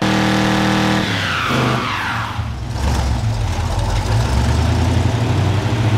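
Vehicle engine revving hard during a tyre burnout, held high at first, then dropping in pitch between about one and two and a half seconds in and running on at a lower, uneven rumble.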